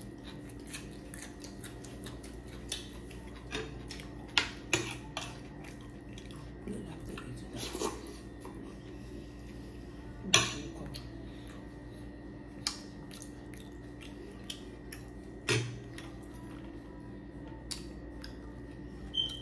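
Spoons clinking and scraping against dinner plates and a glass serving bowl while eating, in scattered short clicks; the loudest clink comes about ten seconds in.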